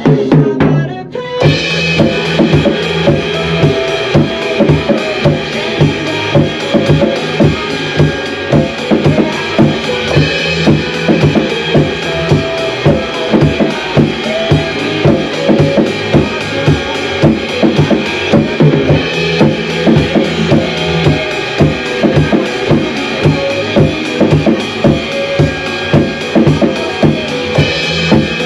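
Acoustic drum kit played along to a pop backing track: a steady groove of bass drum and snare strokes over the recorded song. The music thins briefly about a second in, then the full beat comes in.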